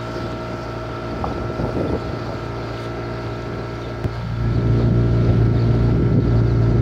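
Small motorboat's engine running steadily as the boat moves along the river, growing louder about four and a half seconds in.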